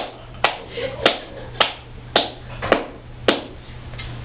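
A slow clap: seven sharp, evenly spaced claps, a little under two a second, stopping about three seconds in.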